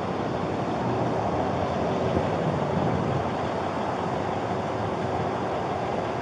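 Steady rushing background noise with a low rumble, even throughout.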